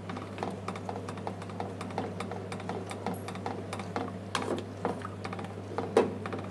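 A metal utensil stirring cream into thick soup in a stainless steel pot, clicking and scraping against the pot's sides several times a second, with a louder knock about six seconds in. A steady low hum runs underneath.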